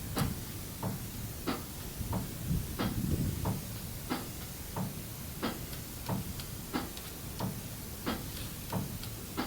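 A steady series of short knocks, about three every two seconds, each with a dull low thud, over a steady hiss.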